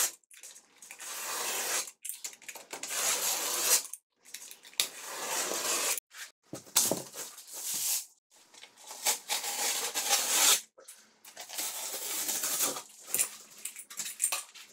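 Utility knife with a fresh blade scoring the fiberglass facing of DensArmor Plus gypsum board along a drywall T-square. It comes as a string of scraping strokes, each about a second long, with short pauses between them.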